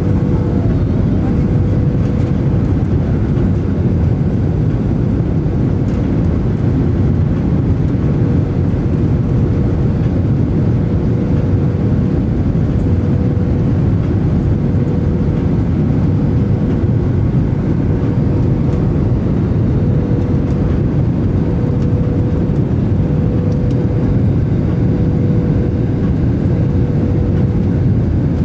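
Steady cabin noise of a passenger jet: the engines and air rushing past the fuselage, with a faint steady hum over the low rumble.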